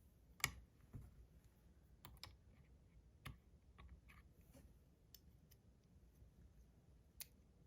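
A few scattered light clicks and taps of small hard objects being handled, the sharpest about half a second in, with near silence between them.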